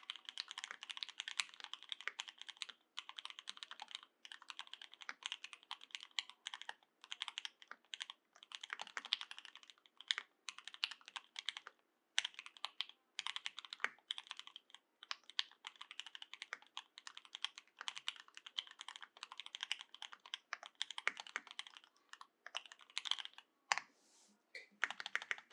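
Steady fast typing on a Monstargear Sangeo60 custom mechanical keyboard with OA switches lubed with Krytox 205g0, Durock stabilizers and GMK Hennessy keycaps: rapid runs of keystrokes broken by short pauses every few seconds.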